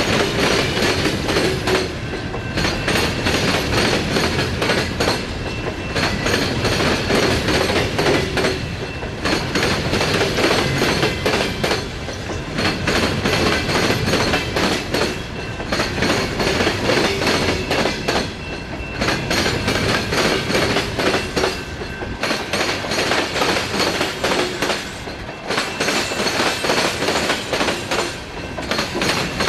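Empty open-top coal hopper cars of a long freight train rolling past, wheels clicking and cars rattling steadily. The sound swells and dips about every three seconds as each car goes by.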